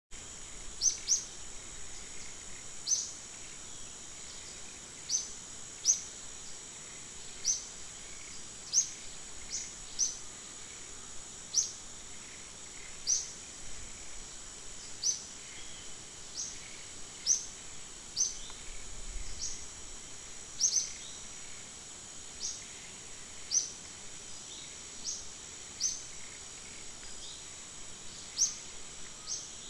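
Forest ambience: a steady high-pitched insect drone, with a short high chirp repeated about every one to two seconds, the chirps being the loudest sound.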